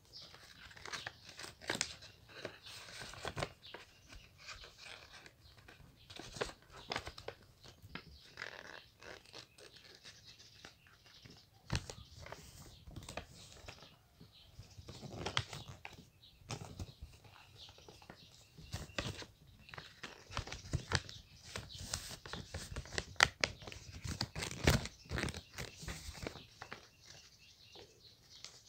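A sheet of paper being folded and creased by hand, rustling and crackling in irregular short bursts.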